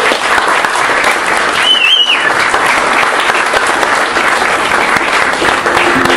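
Audience applauding steadily, with a brief high whistle about two seconds in.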